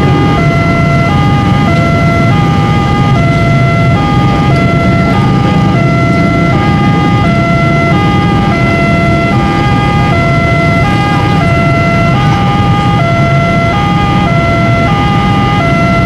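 Railway level-crossing warning siren sounding continuously, a two-tone call alternating evenly between a higher and a lower pitch over a steady whistle-like tone. Underneath runs the low rumble of a train shunting past.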